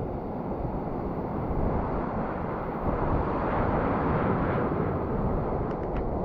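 Steady rushing of wind and storm-whipped surf, swelling for a couple of seconds around the middle.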